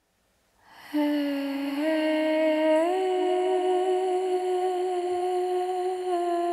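Background music begins about half a second in: a single sustained, humming tone that steps up in pitch twice and then holds.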